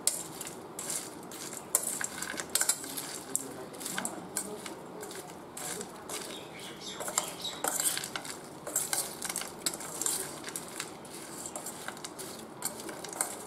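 A spoon stirring and scraping in a stainless steel bowl of crisp fried okra, with irregular clinks of metal on metal throughout.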